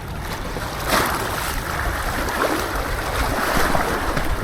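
Steady water and wind noise: waves washing with wind buffeting the microphone.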